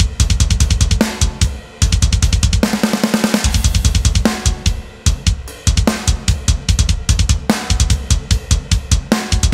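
Programmed metal drum kit playing at 148 BPM: rapid double bass drum under snare and cymbal crashes. About two and a half seconds in, the bass drum drops out for a quick snare fill, then the fast double bass picks up again.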